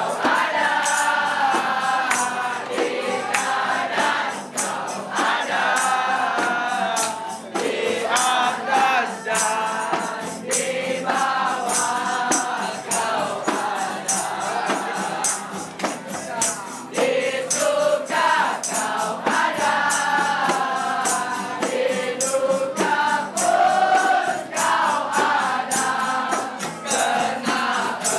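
A crowd of young people singing together loudly, with handclaps through the song.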